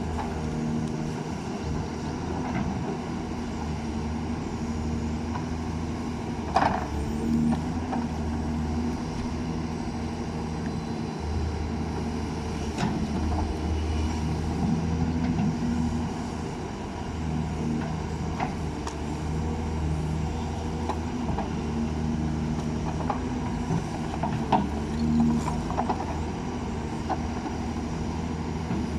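Backhoe's diesel engine running steadily under load, its low drone swelling and easing as the machine works, with a few sharp knocks, the clearest about six seconds in and again near the end.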